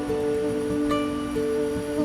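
Background music: soft, slow instrumental with held tones and gentle plucked notes.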